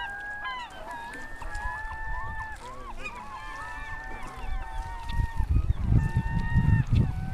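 A flock of gulls calling over and over, many birds at once, a mix of long level cries and short bending calls. From about halfway a low, irregular rumbling buffets the microphone and becomes the loudest sound.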